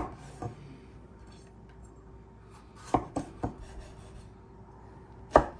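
Chef's knife slicing a yellow bell pepper into long strips, the blade knocking sharply on a wooden cutting board: one knock at the start, a softer one just after, three in quick succession about three seconds in, and the loudest near the end.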